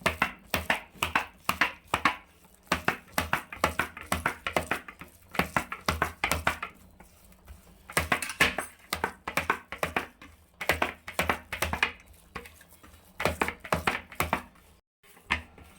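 Fresh chhena being kneaded and rubbed by hand on a plate for rasgulla dough. It makes short, sharp rubbing and pressing strokes with light knocks against the plate, in runs of several a second broken by brief pauses.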